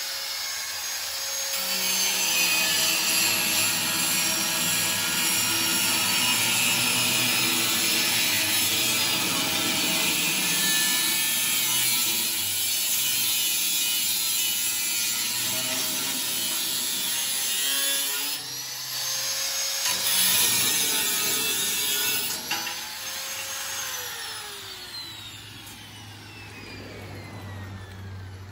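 Electric angle grinder cutting through steel pipe, a loud steady whine with a gritty cutting noise. It stops briefly about two-thirds of the way in, starts again, and near the end is switched off, its whine falling away as the disc winds down.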